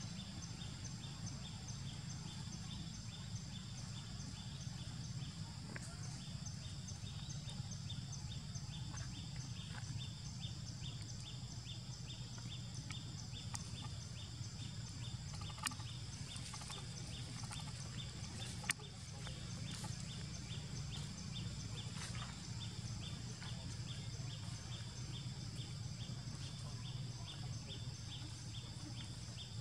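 Forest ambience: a steady high-pitched insect buzz with a rapid, even pulsing chirp, over a low steady rumble. Two sharp clicks about three seconds apart come near the middle.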